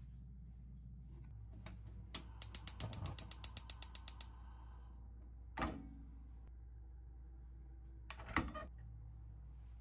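Gas hob's spark igniter clicking rapidly, about eight clicks a second for two seconds, as the burner is lit. Two louder single knocks follow a few seconds apart.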